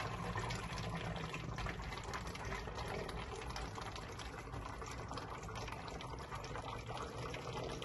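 Water draining in a swirling vortex from an upturned 2-liter plastic soda bottle through a duct-taped washer joint into a second bottle below: a steady rush of pouring water, flecked with many small gurgles as air passes up through the neck.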